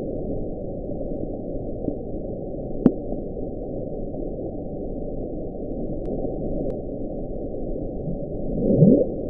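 The "Bloop", a 1997 NOAA hydrophone recording of an ultra-low ocean sound played sped up: a steady low rushing noise with a short sharp click about three seconds in and a rising, swooping sweep near the end. Some take it for a huge creature's call; others for ice fracturing on the seafloor.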